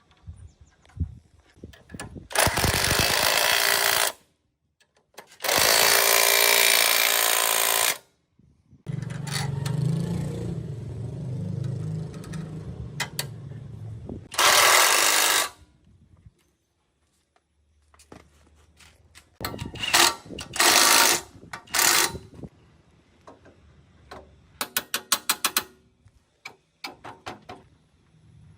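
Pneumatic workshop tool running in repeated bursts of a couple of seconds each, with a longer stretch in the middle. Near the end it gives a short run of fast rattling hits.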